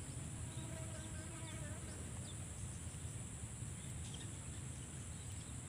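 Quiet outdoor ambience: a steady high-pitched insect drone, with faint short bird chirps now and then.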